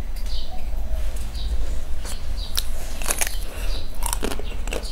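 Biting into and chewing a chocolate-coated ice cream bar with a coconut-flecked coating. Its hard shell cracks in a run of sharp crunches from about two seconds in, over a steady low hum.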